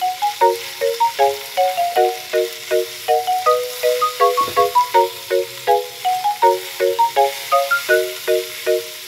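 Background music: a quick, bouncy tune of short struck notes in a steady rhythm. Faint sizzling of minced meat and vegetables stir-frying in a pan lies underneath.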